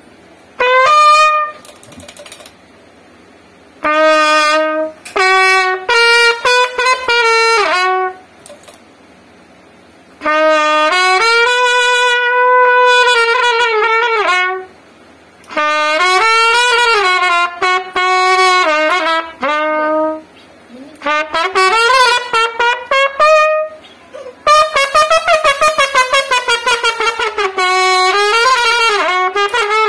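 Trumpet played solo: a melody in phrases of a few seconds with short pauses between them, some notes held, and a longer run of quick notes near the end.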